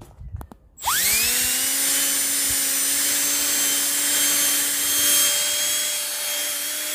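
Cordless drill starting about a second in, its motor whine rising quickly and then running steadily, with a foam polishing pad hissing as it buffs compound on a plastic headlight lens. A few small clicks before the drill starts.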